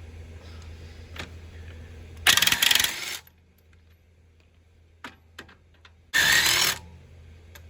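Two short bursts of an electric impact wrench hammering, loosening the lug nuts on a truck wheel, with a few faint metal clicks between them.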